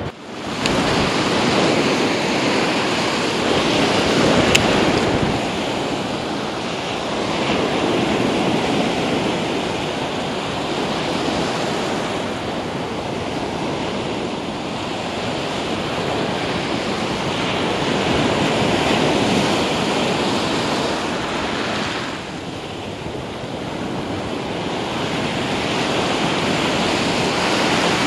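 Surf breaking and washing up a sandy beach, the rush of the waves swelling and easing every few seconds.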